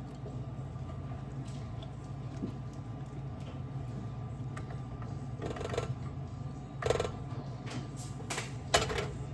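Kitchen handling noises: a few sharp clicks and knocks of utensils and a baking pan or bowl being handled in the second half, over a steady low hum.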